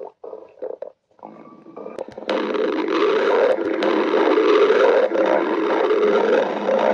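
A person's stomach growling: a few short broken rumbles, then about two seconds in a loud, continuous growl that starts abruptly and runs on.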